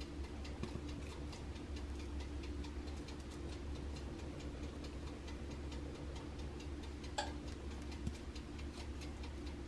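A wooden spoon smearing a soft butter mixture over an ear of corn: faint, rapid light ticking over a steady low hum, with one slightly louder scrape about seven seconds in.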